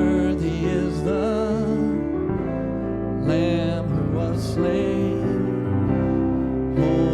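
Worship song playing: held piano and keyboard chords with a voice singing over them.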